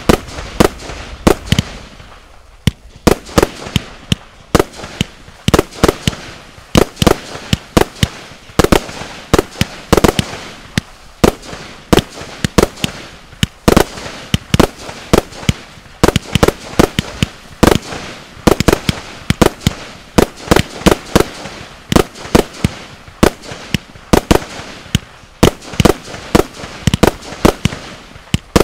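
Stealth Fireworks Glimmer Glamour, a fast-paced 100-shot 1.3G firework cake, firing in rapid succession. Its shots burst into strobe stars as a steady stream of loud reports, roughly two or three a second, with a brief lull about two seconds in.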